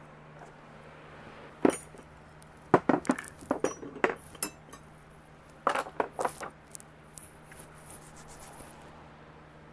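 Loose metal hand tools clinking and clattering against each other as they are handled: one sharp clink, then a quick run of clinks about three seconds in and another about six seconds in.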